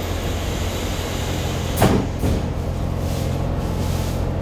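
Steady low hum of a Kawasaki-built Hong Kong Light Rail car, heard from inside the car, with one sharp knock about two seconds in.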